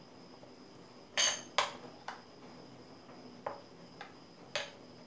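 Metal spoon clinking against a ceramic bowl while stirring thick coriander chutney: six short clinks, the first two the loudest.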